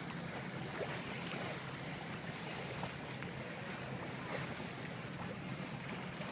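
Steady wind and water noise aboard a sailboat under way, with wind buffeting the microphone.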